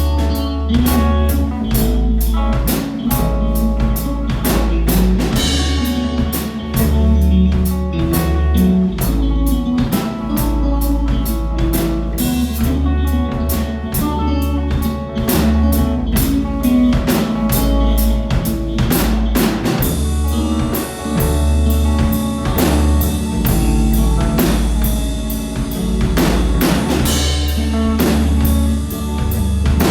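A rock band playing a song live, a drum kit keeping a steady beat over held low bass notes and other pitched instruments.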